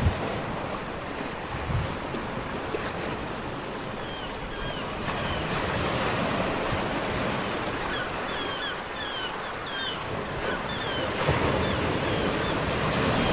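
Recorded sea sound effect: waves washing in a steady, slowly swelling rush, with faint short high chirps through the middle.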